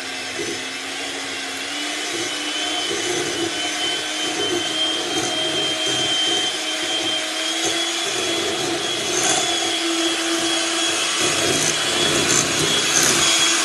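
Electric hand mixer running steadily, its beaters whisking a cream mixture in a glass bowl. The motor's pitch creeps up a little over the first couple of seconds, then holds.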